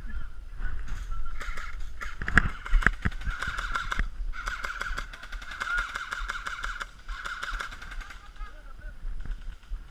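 Airsoft gun firing on full auto in rapid bursts, a fast even rattle of shots, with a few louder sharp cracks about two to three seconds in. A steady high whine runs under it.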